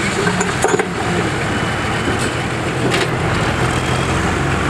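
Farm tractor's engine running under heavy load as it pulls a weight-transfer sled at a tractor pull. Its low drone grows stronger about three seconds in.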